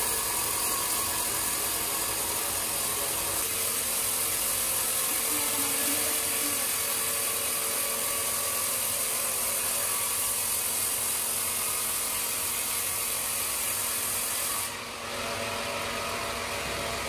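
Large horizontal band sawmill running with a steady mechanical whir and high hiss, dipping briefly near the end.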